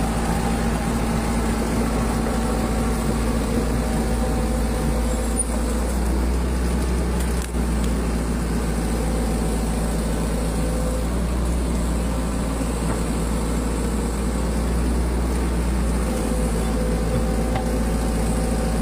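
Hitachi 110 hydraulic excavator's diesel engine running steadily while it is being operated, a constant low drone.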